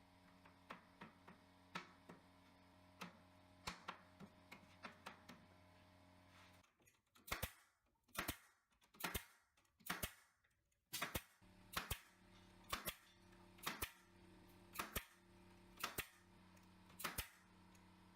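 Sharp knocks on wood, lighter and irregular at first, then louder and about one a second from about seven seconds in, typical of nails being driven while a pallet workbench is assembled. A steady low hum runs underneath and drops out briefly in the middle.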